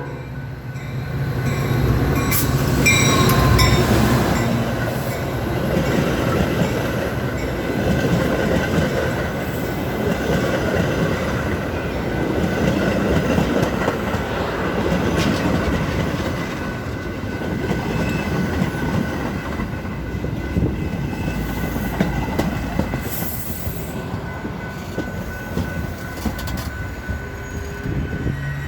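Metra commuter train hauled by F40PH diesel locomotive #133 rolling past: a steady rumble of wheels on the rails, loudest a few seconds in and easing slightly near the end, with a faint high wheel squeal held underneath.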